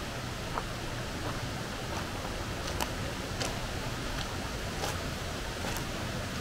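Steady rushing of a fast-flowing burn and waterfalls in a rocky glen, broken by a few sharp clicks.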